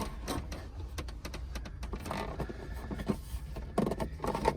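Scrapes and scattered knocks of a plastic truck center console being shifted and pushed into line over its floor bolt holes, with a denser cluster of knocks near the end.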